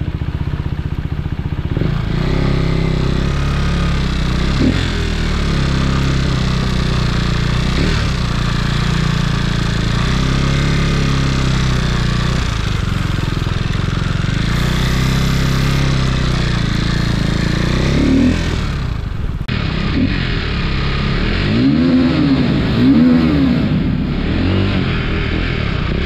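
Sport motorcycle's engine running while being ridden, its note stepping up and down in pitch several times as the throttle and gears change.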